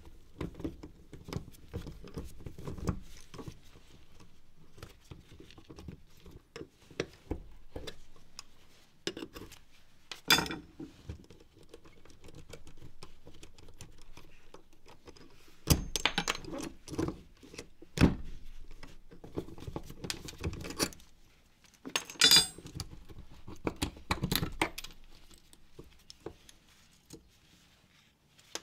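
Clicking and clattering of plastic and metal parts being handled as a string trimmer is taken apart for scrap, with a few louder sharp knocks at irregular intervals.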